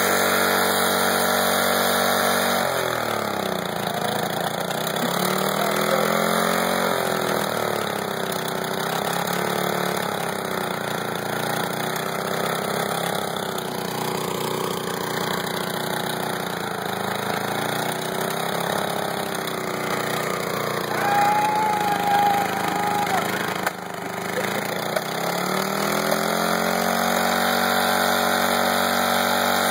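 Snapper riding mower's engine running while burning transmission fluid and pouring out thick smoke. Its speed drops a few seconds in and then surges up and down unevenly, as if labouring. Near the end it picks back up to a steady run.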